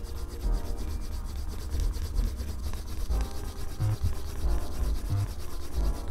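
Quick, repeated back-and-forth rubbing on the edge of a leather belt, burnishing the edge smooth.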